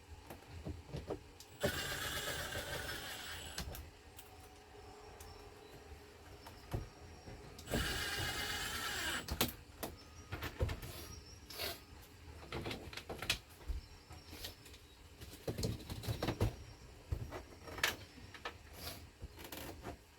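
A small power tool's motor whirring in two runs of about two seconds each, then scattered clicks and knocks.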